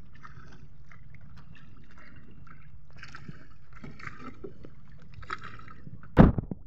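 Steady low drone of a motorized outrigger fishing boat running on open water, with one loud sharp knock about six seconds in.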